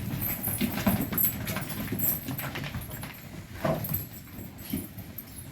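Dairy cows walking in for milking, their hooves clopping and knocking irregularly, with a brief low call a little before the end.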